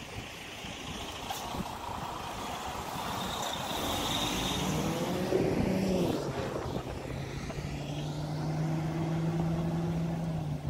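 Road and wind noise from a moving car, with an oncoming pickup truck passing about six seconds in, its sound sweeping down in pitch as it goes by. After it, a steady low engine hum holds until near the end.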